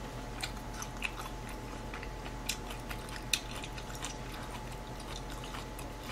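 Close-miked chewing of chop steak with the mouth closed: soft, wet mouth clicks and smacks, with a few sharper clicks standing out.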